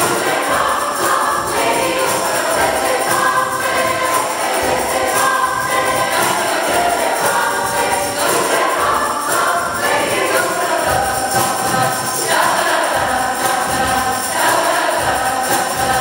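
Mixed-voice community choir singing a song together, with many voices in harmony and no pause.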